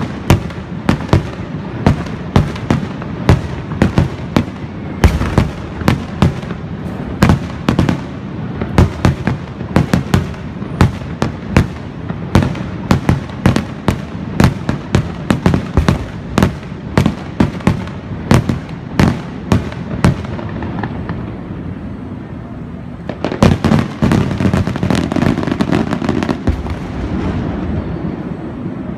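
Aerial firework shells bursting, many sharp bangs in quick succession for about twenty seconds. A short lull follows, then a denser volley of bangs near the end.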